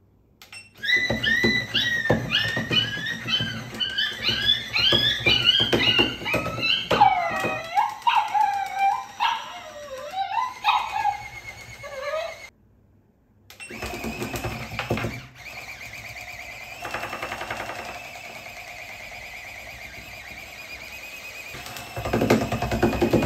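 Electronic plush dog toy overdriven from a bench power supply at 7 V, then 10 V: its speaker plays rapid, high-pitched yelps and barks over its motor, sliding into lower falling whines about halfway through. After a brief silence the motor whirs steadily with a high whine, louder near the end.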